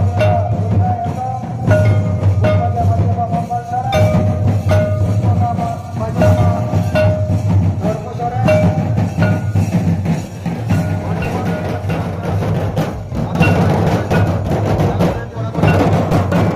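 Folk drum ensemble: double-headed drums slung at the players' hips, beaten in a steady rhythm, with a wavering melody line held above the beat.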